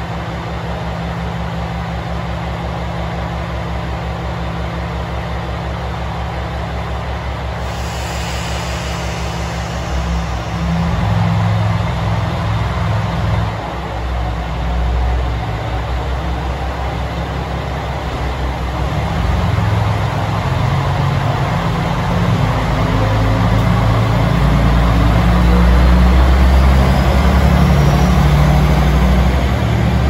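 KiHa 120 diesel railcar's engine idling with an even low throb, then running louder from about ten seconds in and louder again in the last third. Near the end a faint rising whine comes from a 521 series electric train moving past.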